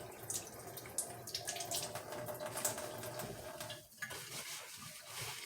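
Close-up chewing of a crispy fried dumpling: irregular sharp crunches over a steady wet mouth sound.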